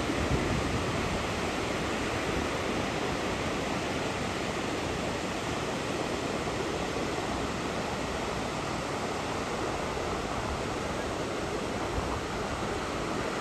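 Ocean surf breaking offshore on a wide sandy beach, heard as a steady, even wash of noise with no single wave crash standing out.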